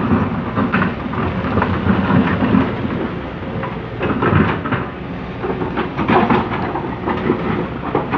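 Komatsu PC200CE hydraulic excavator digging soil: its diesel engine runs steadily under load beneath irregular rumbling, scraping surges as the bucket works the earth.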